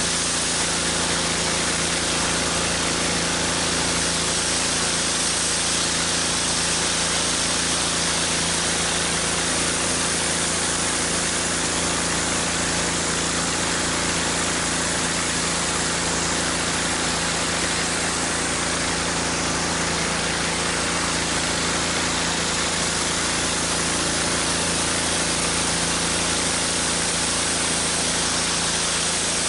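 Pressure washer engine running steadily while a four-tip water broom sprays high-pressure water onto concrete. It is a constant hiss of spray over the engine's even hum.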